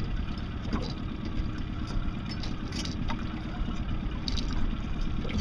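Steady low rumble of a small boat on the water, with a faint steady hum under it. Over it, a few light clicks and knocks come from the wire crab pot and the crabs moving inside it.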